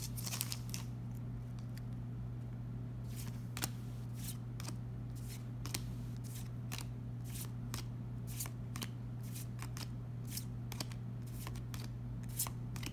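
Trading cards being slid one at a time off the front of a hand-held stack, each giving a short papery flick, about one or two a second, after a brief rustle of the foil booster-pack wrapper at the start. A steady low hum runs underneath.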